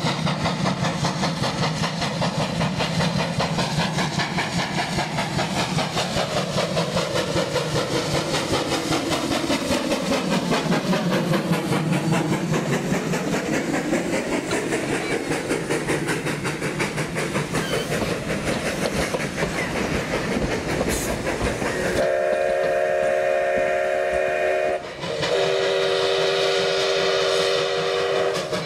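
Sierra Railway No. 3, a ten-wheeler steam locomotive, working hard upgrade with rapid exhaust chuffs as it and its coaches roll past. About three quarters of the way through, its steam whistle sounds several notes at once in one long blast, a short break, then another long blast.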